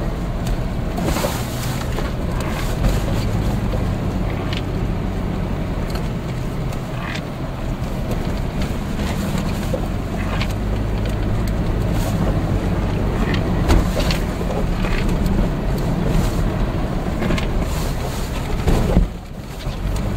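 An off-road vehicle driving over a sandy desert track, heard from inside the cabin: a steady low engine and tyre rumble with occasional knocks and rattles from the bumpy ground. The rumble dips briefly near the end.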